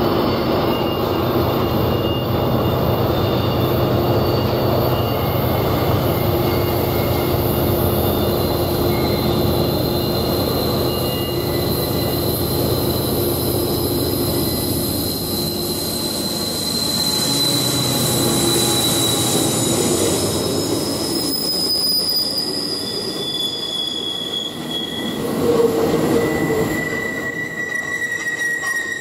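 Freight train rolling through a tight curve: a dense rumble of wheels on rail, with steel wheel flanges squealing in high, drawn-out tones that come and go. The low rumble eases off about halfway through while the squeals carry on.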